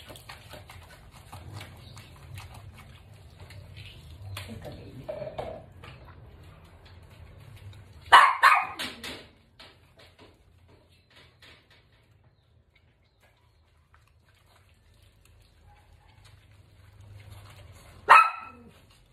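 Dog barking: a quick run of loud barks about eight seconds in, a single loud bark near the end, and softer yelps earlier.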